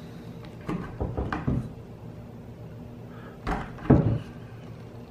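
Cookie spatula plunging down through layered phyllo dough and knocking on the bottom of the baking pan. There are a few short dull knocks, four in quick succession about a second in and two harder ones near four seconds.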